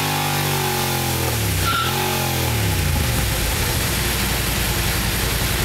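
Yamaha TDM900 parallel-twin, tuned with aftermarket camshafts and high-compression Wiseco pistons and fitted with an Over exhaust, revving on a dyno. The revs hold high for about a second, dip and rise again once, then drop to a lumpy idle about three seconds in.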